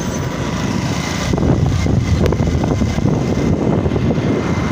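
Small motorcycle engine running under way, mixed with wind and road noise on the microphone, growing a little louder about a second in.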